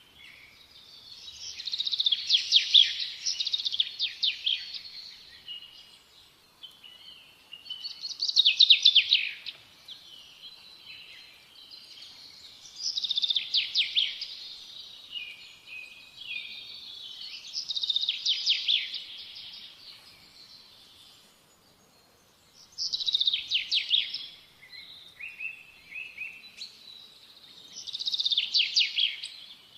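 Small songbirds chirping in repeated bouts of rapid, high chirps, one bout about every five seconds, each lasting two to three seconds, with softer scattered chirps between them.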